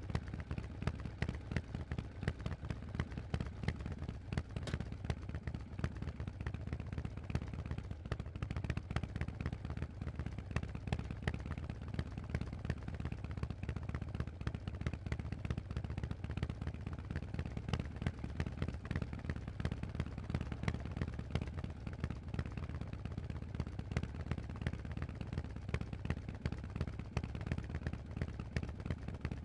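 Harley-Davidson Forty-Eight's 1200 cc air-cooled V-twin running through a Vance & Hines aftermarket exhaust: a dense stream of sharp, rapid exhaust pulses, fairly even throughout.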